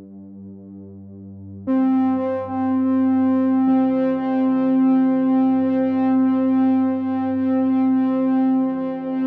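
Background synthesizer music of long held chords; it swells suddenly louder and brighter a couple of seconds in, and the lower notes change a little later.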